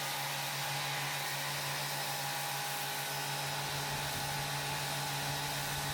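Electric Kärcher pressure washer running steadily: an even motor hum with a constant hiss over it.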